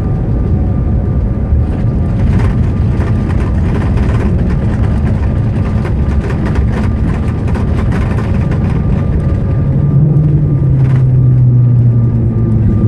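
Cabin noise inside a Bombardier CRJ-900LR on its landing roll: a loud, steady rumble with scattered rattles. A low, steady hum comes in about ten seconds in and holds.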